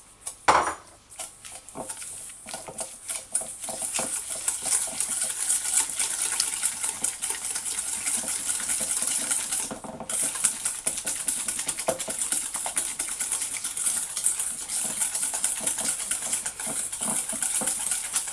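Wire whisk beating softened butter into brown and white sugar in a stainless steel bowl. The wires make rapid, continuous scraping and clinking against the metal. A sharp knock comes about half a second in, and there is a brief pause near the middle.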